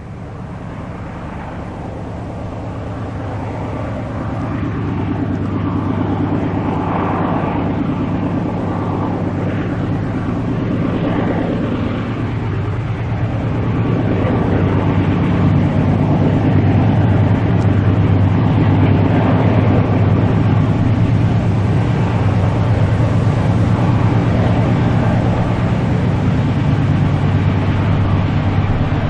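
Diesel locomotives working up a mountain grade, their engines droning steadily and growing louder over the first half as the train approaches, then holding at full volume.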